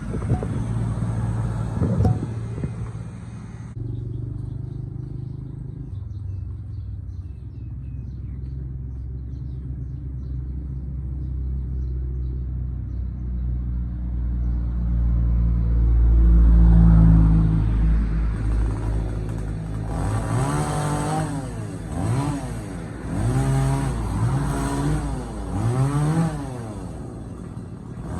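Two-stroke chainsaw engine running, a steady drone at first. From about two-thirds of the way in it is revved up and down again and again as it cuts wood.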